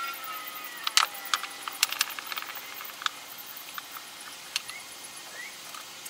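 Irregular light clicks and taps, a dozen or so, thickest in the first half, from a glued cedar box ring and small tools being handled on a workbench while glue is wiped off with a rag.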